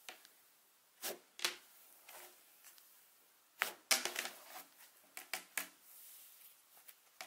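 Cloud slime being pressed and stretched by hand, giving a series of short, irregular squishing bursts, the biggest about four seconds in.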